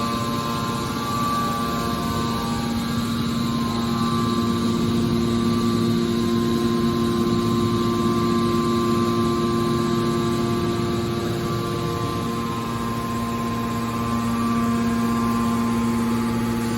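Hydraulic scrap metal baler's power unit running with a steady hum made of several held tones over a constant noise.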